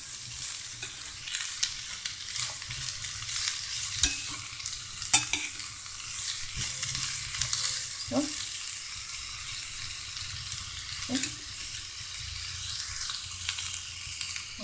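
Shredded cabbage sizzling as it stir-fries in an oiled pan, with a metal spoon stirring it and clicking and scraping against the pan every second or two.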